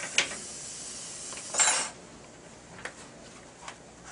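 Metal dental instruments clicking and clinking against each other a few times, with a brief loud hiss of about a third of a second partway through.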